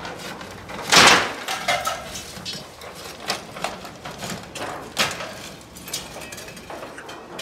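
Old sheet-metal roofing being thrown off a porch roof: a loud crash as a sheet lands about a second in, followed by scattered lighter metallic clanks and knocks.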